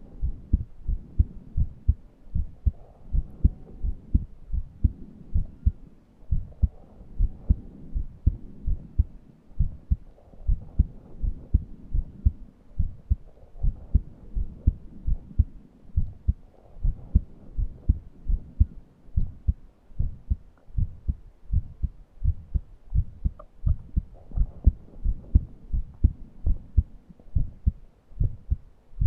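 A person's heartbeat heard close up, a steady run of low paired thumps, with wheezy breath sounds swelling and fading every few seconds underneath. The wheeze comes with labored breathing, too short of breath to inhale deeply.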